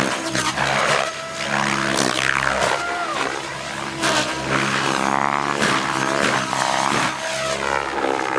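MSH Protos Max Leggero electric RC helicopter flying 3D aerobatics: its main rotor blades whoosh in repeated swells and pitch slides as the collective is pumped, over a steady whine from the motor and drivetrain.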